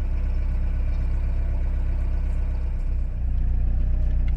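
Narrowboat's engine running steadily while cruising, a low even throb.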